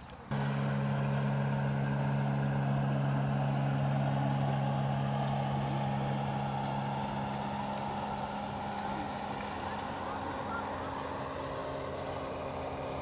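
Outboard motor of a small motorboat running at a steady speed as the boat passes, a steady drone that starts abruptly just after the start and slowly fades over the second half as it moves away.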